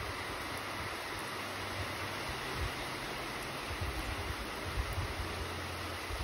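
Steady rain falling, an even hiss, with a faint low rumble underneath.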